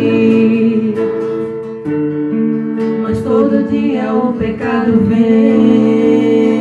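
Live gospel worship music: an acoustic guitar strummed over sustained keyboard chords, with some singing voices between the sung lines.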